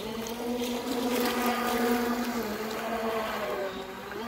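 1/10-scale RC pontoon boat's scale outboard motor running with a steady whine, its pitch dipping slightly about two and a half seconds in and again near the end.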